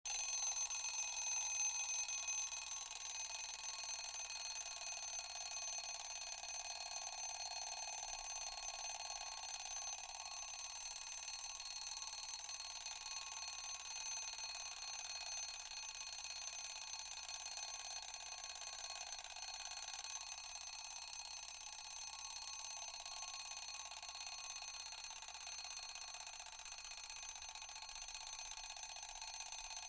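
Mechanical alarm clock's bell ringing without a break, a dense metallic ringing that grows slightly fainter over time.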